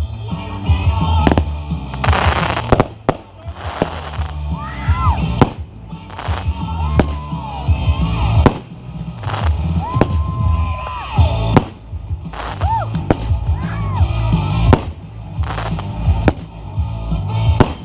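Fireworks going off in quick succession, many sharp bangs and cracks, over music playing.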